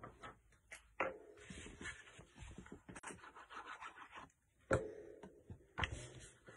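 Hands pressing and rubbing a clear acrylic stamp block onto cardstock, a scraping, rubbing sound, with three sharp knocks as the block and tools are set down on a cutting mat.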